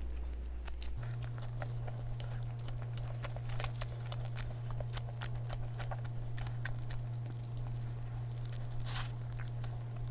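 Close-miked chewing and biting of a soft, chewy cream-filled donut with strawberry-yogurt cream, full of small wet mouth clicks and smacks. A steady low hum runs underneath and shifts up in pitch about a second in.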